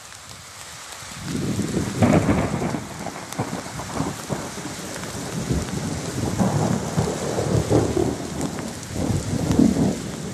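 Thunder rolling: a low rumble that begins about a second in and swells and fades several times, over a steady hiss of rain.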